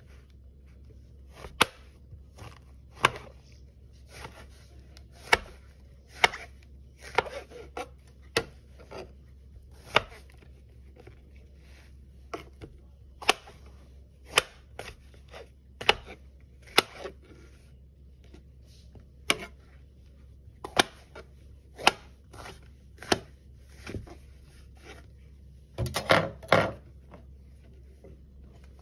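Kitchen knife slicing chestnut mushrooms on a plastic chopping board: sharp, irregular knocks of the blade meeting the board, about one a second, with a quick run of several cuts near the end.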